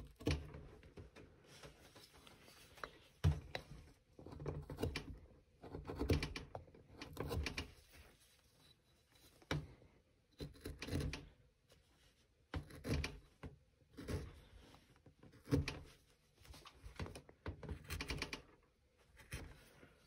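Carving gouge cutting into basswood in short repeated strokes. Each stroke sets off clicks and rattles from the rattly carving bench, a cluster roughly every second or so.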